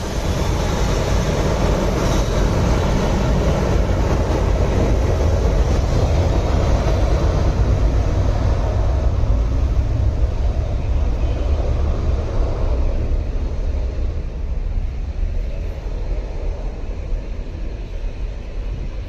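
Boeing 737 jet engines at takeoff thrust during the takeoff roll: a loud, steady rumble with a hiss above it that eases off over the last several seconds as the aircraft moves away.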